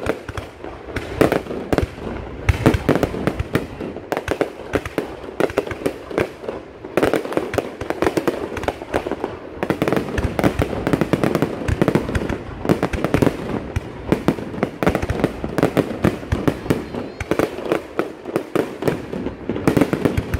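Aerial fireworks shells bursting in a dense, continuous barrage of sharp bangs and crackles, many a second.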